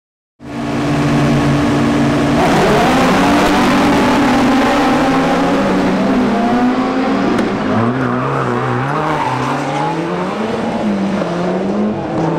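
Several rallycross cars' engines held at high revs on the start line. About two seconds in they launch and accelerate away together, the engine notes rising and falling again and again through the gear changes.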